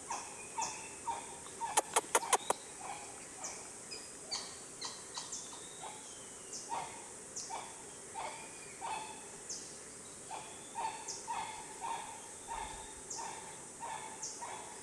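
Rainforest ambience: a steady high insect hiss under short animal calls repeating about twice a second, with a quick run of five sharp clicks about two seconds in.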